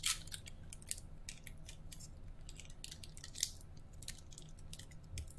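Panini basketball trading cards flipped through by hand: a run of light clicks and slides as the card edges rub past one another, with one sharper snap about three and a half seconds in.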